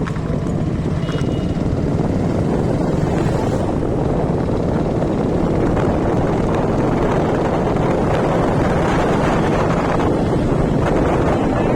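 Steady noise of a moving road vehicle, with wind buffeting the microphone.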